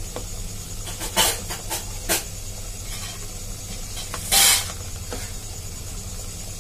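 A spoon scraping and knocking against a rice cooker's perforated steamer tray as steamed momos are lifted out: a few short scrapes, the longest about four seconds in, over a steady low hum.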